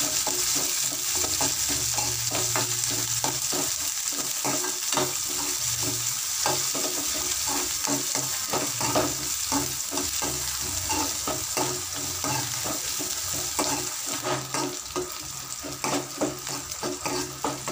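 Chopped onion, dried red chillies and curry leaves sizzling in hot oil in a metal kadai while a steel spatula stirs and scrapes, with frequent irregular clicks of the spatula against the pan. The sizzle eases a little near the end.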